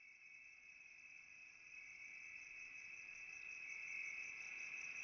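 Steady, high-pitched insect-like chirring, like crickets, with a fast pulsing shimmer above it, fading in gradually and growing louder.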